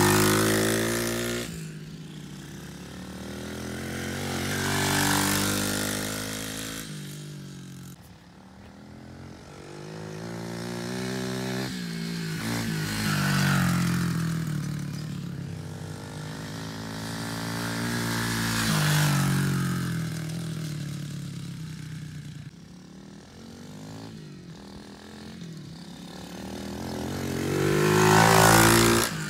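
110cc Stomp pit bike's four-stroke single-cylinder engine revving up and down as the bike rides laps. It swells loud each time it passes close, several times over, loudest near the end.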